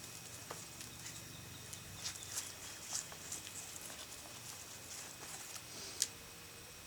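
Faint, scattered rustling and crumbling of potting soil as hands dig through a planter for potatoes, with a sharper click about six seconds in.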